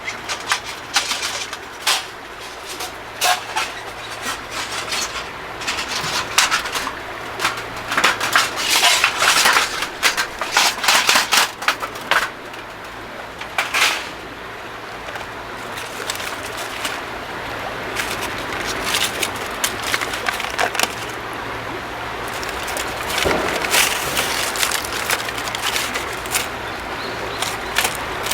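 Small wood campfire crackling, with irregular sharp snaps and pops that come thickest a third of the way in. Under them runs a steady rushing noise that slowly grows louder.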